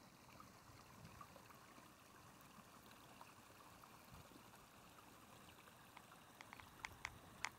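Near silence: faint background hiss, with a few soft clicks in the last second or so.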